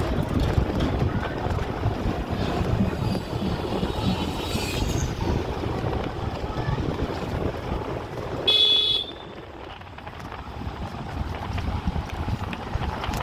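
Steady rumble of passing road traffic, with a vehicle horn sounding once, briefly and loudly, about eight and a half seconds in.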